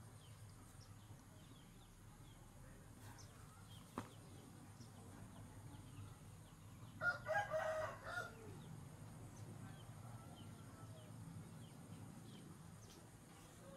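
A rooster crows once, about seven seconds in: a single call of about a second and a quarter, the loudest sound here. Faint small-bird chirps and a low steady hum sit underneath.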